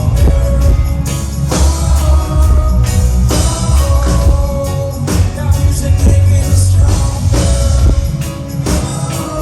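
A live reggae band plays through a loud PA, with a heavy bass line and a steady drum beat.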